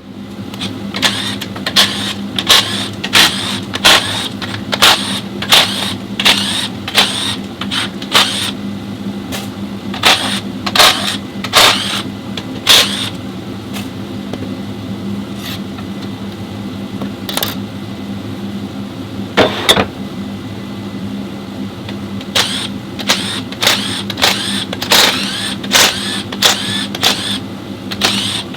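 Repeated sharp metallic clacks and clinks at an irregular pace, thinning out in the middle and picking up again near the end, over a steady machine hum, as of tools and parts being handled in a workshop.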